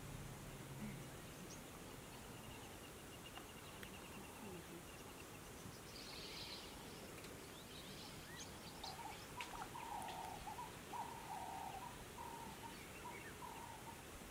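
Faint wild outdoor ambience with birds calling: a thin high trill in the first few seconds, a brief high chirping about six seconds in, then a run of short repeated mid-pitched calls through the second half.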